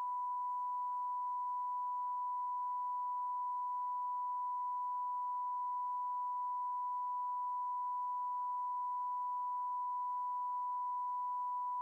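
Steady television test tone: a single pure tone held at a constant level without a break. This is the station's off-air signal after its end-of-broadcast sign-off.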